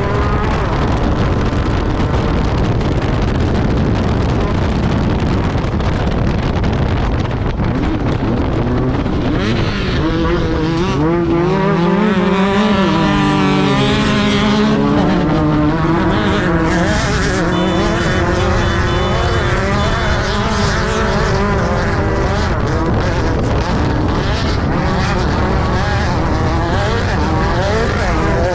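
Class 10 desert race buggy's engine running hard, its note rising and falling as it revs up and backs off, over heavy steady noise from the car at speed.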